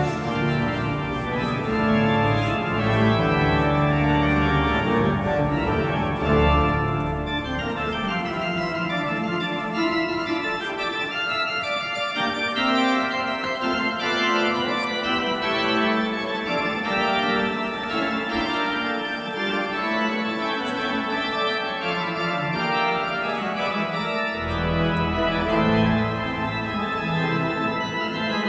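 Organ music playing held chords that change every second or two, with deep bass notes in the first several seconds and again near the end.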